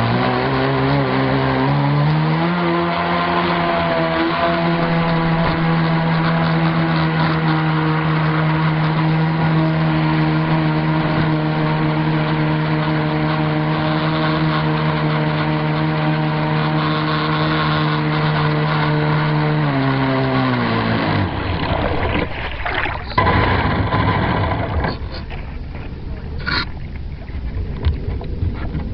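Motor of the Twin Storm RC speedboat, heard from on board: its whine climbs in pitch over the first couple of seconds, holds steady at high speed for a long run, then falls away about twenty seconds in as the boat slows. After that, rushing water and wind noise remain, with a few sharp knocks near the end.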